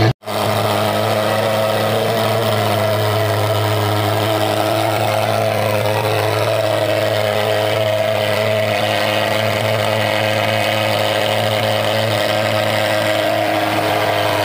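Portable thermal fogging machine running, a steady buzzing drone as it blows out insecticide fog against mosquitoes; the sound cuts out for an instant just after the start.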